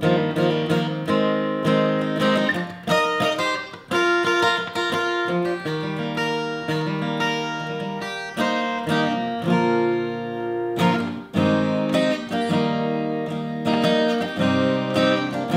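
Solo steel-string acoustic guitar playing an instrumental piece of strummed and picked chords.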